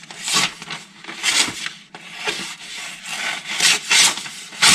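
About five scratchy, rasping strokes of a Musashi kiritsuke bunka's Aogami #2 carbon-steel edge being drawn across something to test its sharpness; the edge is dull.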